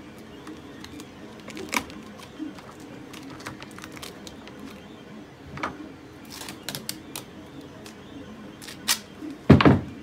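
Duct tape and a plastic bucket being handled: scattered clicks and rustles as tape is pressed down and the roll is picked up, with a short loud noise near the end.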